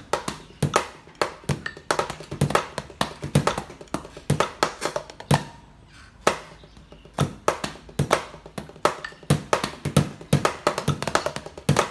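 Wooden drumsticks tapping on a rubber practice pad, with the dull thud of a kick-pedal beater on a practice bass-drum pad under some strokes, playing a slow drum pattern. The strokes pause briefly about halfway through.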